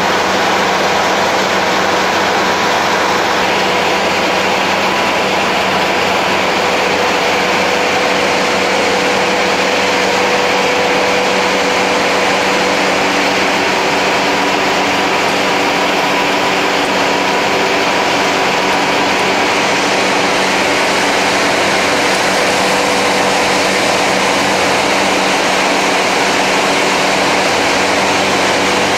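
Skid-steer loader's engine running steadily at a constant pitch while the loader carries a tree in its grapple.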